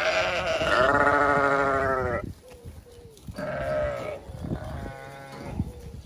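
Sheep bleating: one long, wavering bleat of about two seconds, then two shorter bleats in the second half, the last one fainter.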